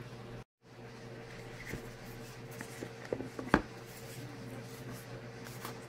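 Cardboard Samsung Galaxy S9+ box being opened by hand: light scraping and rustling as the sleeve slides off, with a few small clicks and one sharp tap about three and a half seconds in. A steady low hum runs underneath, and the sound drops out briefly about half a second in.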